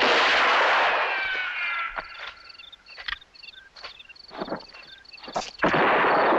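Sound-art collage of gunshots and ricochets: a loud shot with a falling ricochet whine opens it, and another comes about two thirds of the way in. Sparse sharp cracks and short, repeated high chirps fill the quieter stretch between them.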